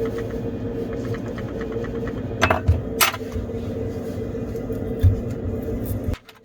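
Samsung Galaxy S22 Ultra phone making a steady buzzing rattle, the rattling-noise fault to be repaired. A couple of sharp clicks and a low thump come through it, and it cuts off abruptly near the end.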